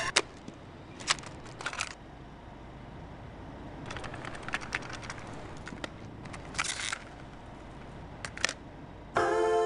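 A gap in the backing music: a low steady hiss with a scattered handful of sharp clicks and short clusters of clicks. Music comes back in loudly about half a second before the end.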